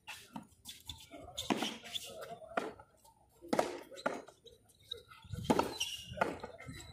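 Frontón ball rally: sharp smacks of the ball struck by hand and hitting the concrete wall and floor, about one every half second to second, irregular, each with a short echo off the walls.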